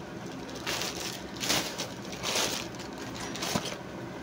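Plastic courier packaging rustling and crinkling as it is handled, in four short bursts.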